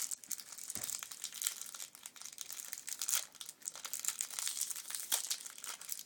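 Bubble wrap being crinkled and pulled at by hand, an irregular crackling with a few sharper pops.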